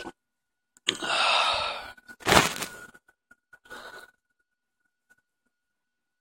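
A man's long, heavy exhale close to the phone's microphone, then a sharper, louder puff of breath about a second later and a short one after that.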